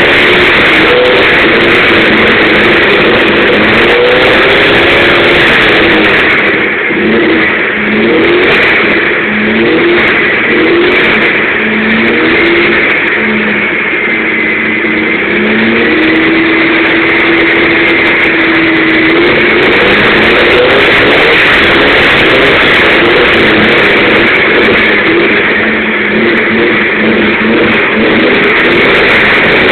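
Volkswagen Fusca's air-cooled flat-four running through a new Puma-style exhaust, loud, revved up and dropped back again and again, with one longer held rev about halfway through.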